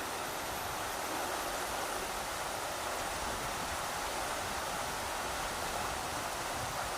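A rushing river: a steady, even rush of flowing water.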